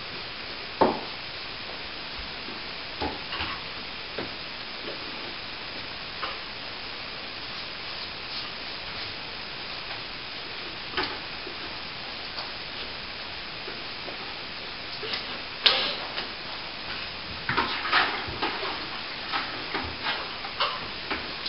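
Plastering hand tools working on an archway: scattered light taps and scrapes over a steady hiss. There is a sharp knock about a second in, the loudest knock about two-thirds through, and a quick run of clatters near the end.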